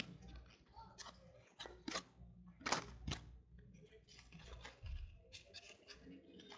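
Trading cards being flipped through a handheld stack, each card slid off the pack with a short, sharp click or snap. The clicks come unevenly, a few about a second in, around two to three seconds in, and a quick cluster near the end.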